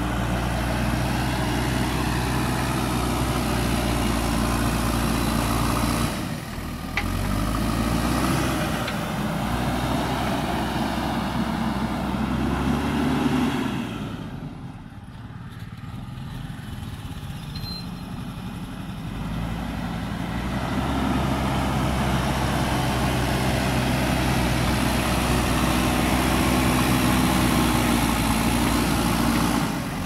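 JCB 3DX Super backhoe loader's diesel engine working under load as its front bucket pushes soil, the engine note rising and falling with the throttle. It drops quieter for several seconds around the middle, then comes back up loud.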